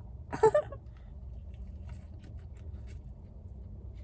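Bite into a McDonald's crispy fried chicken sandwich: one loud crunch about half a second in, then faint clicks of chewing.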